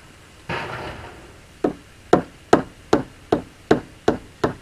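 Small hammer tapping on a screw used as a drift, about two and a half evenly spaced knocks a second, knocking a sailboat's rudder down to free it from its fitting. The tapping starts about a second and a half in, after a short rustling scrape.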